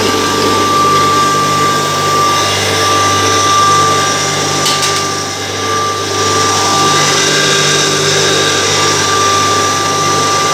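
3 HP pulverizer mill running steadily while grinding rice through a fine sieve: a constant motor hum with a high, even whine over it.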